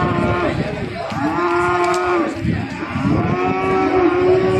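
Cattle mooing: one long moo about a second in, then another long moo beginning about three seconds in.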